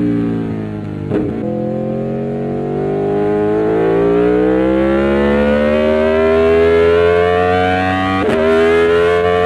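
Aprilia Tuono V4 1100's V4 engine under way: the revs sag briefly, then climb slowly and steadily under throttle for several seconds, with an upshift a little after eight seconds that drops the pitch before it starts rising again.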